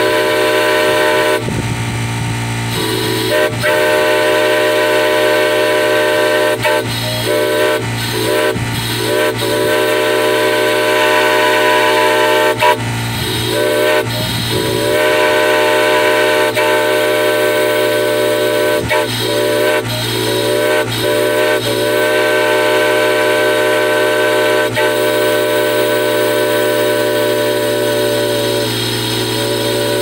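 Multi-chime whistle blown on compressed air, sounding a loud chord of several notes held for long stretches. About half a dozen times the blow is briefly cut back and reopened, so the chord dips and sounds again.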